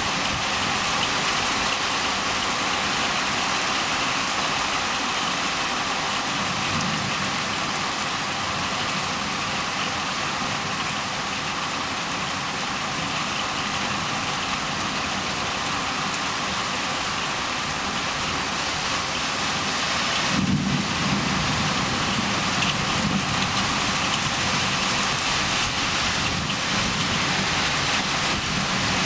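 Heavy rain falling steadily, with low rumbles of thunder rolling in twice.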